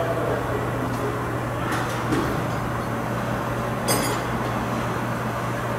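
Steady electrical hum and fan noise from battery charging and load-testing equipment running during a battery load test, with a brief clink about four seconds in.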